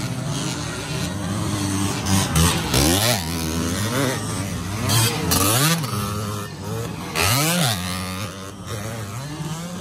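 Dirt bike engines racing on a motocross track, revving hard and falling back again and again as the bikes accelerate and shift. The loudest pulls come about three, five and seven and a half seconds in.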